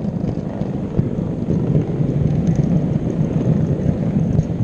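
O gauge model locomotive running along the track with the microphone riding on it: a steady low rumble of the motor, gears and wheels on the rails, with occasional light clicks.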